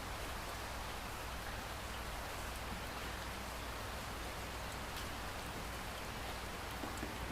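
Light steady rain falling, an even hiss with scattered drips.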